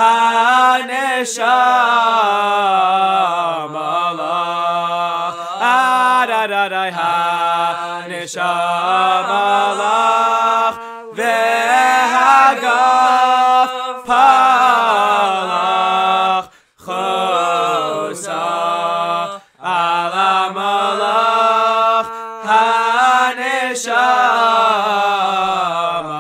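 Men singing a Hebrew song a cappella: a slow melody of long held notes and ornamented turns, with no instruments. There are two brief breaks in the singing in the second half.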